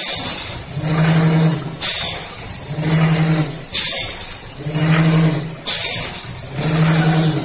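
Multi-column stick-pack packaging machine cycling: a steady low hum for under a second, then a sharp pneumatic hiss, repeating about every two seconds.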